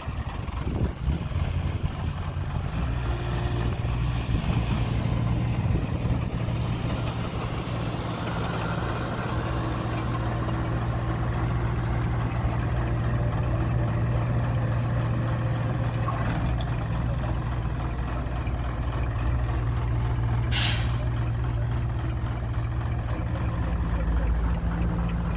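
A heavy diesel truck or earthmoving engine running steadily with a low drone. About twenty seconds in comes one short, sharp hiss of air, like an air brake releasing.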